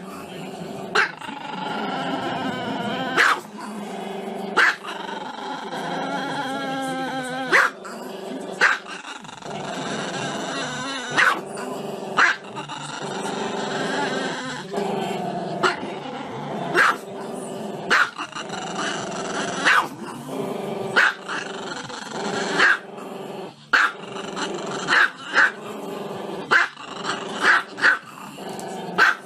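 Small black-and-tan Chihuahua-type dog howling with its head raised: long wavering howls broken by short, sharp yips about once a second.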